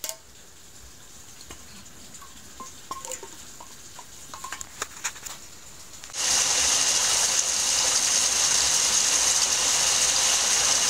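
Hail and heavy rain pouring down onto a tiled roof: a loud, steady hiss that comes in suddenly about six seconds in, after a few faint clicks.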